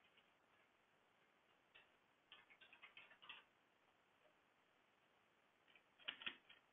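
Near silence with faint, short clicks: a scattered cluster about two seconds in and another near the end.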